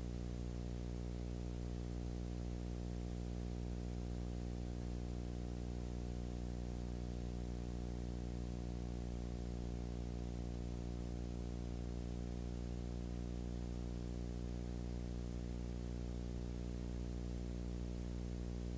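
Steady low electrical hum with a stack of overtones and a faint hiss, unchanging throughout: noise on the audio track of a silent film transfer.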